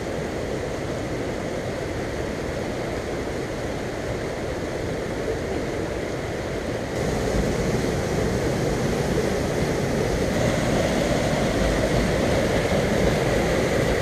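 Rushing water of a rocky waterfall and its cascades, a steady noise of falling and churning water that grows louder about halfway through.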